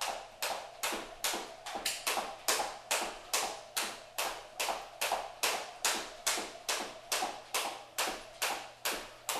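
Jump rope skipping on a hardwood floor: the rope and shoes strike the floor with sharp taps in a steady rhythm, about two and a half a second.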